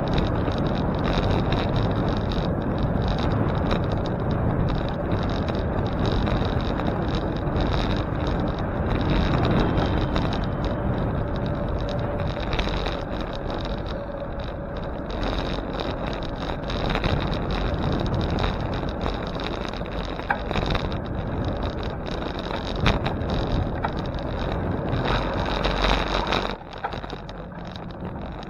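Steady rush of wind on the microphone with the low road rumble of a bicycle being ridden, growing quieter near the end.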